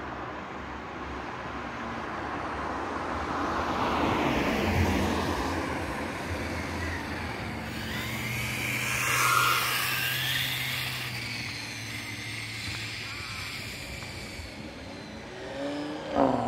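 Traxxas 4-Tec 2.0 RC car running at high speed on 6S power: its electric motor and gears whine, the pitch sliding up and down as it passes, loudest about nine to ten seconds in.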